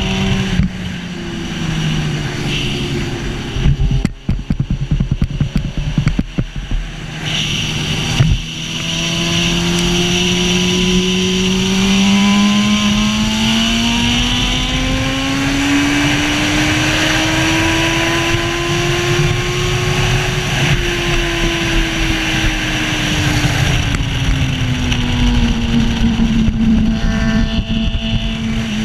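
A racing sidecar's engine at speed, heard onboard, with wind rushing past. A few seconds in the note goes choppy and uneven. It then climbs slowly for about twelve seconds and falls away again.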